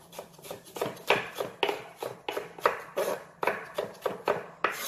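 Chef's knife dicing red bell pepper on a wooden cutting board with a rocking motion: quick, even knocks of the blade on the board, about four a second.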